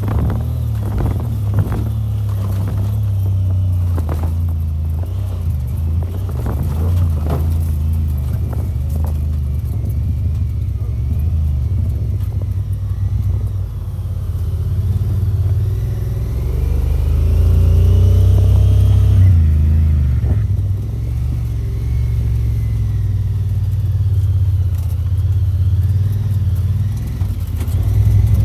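Side-by-side UTV engine running with a steady low rumble while driving a rough trail. Several knocks and rattles over bumps come in the first nine seconds or so, and the engine note rises and gets louder about two-thirds of the way through.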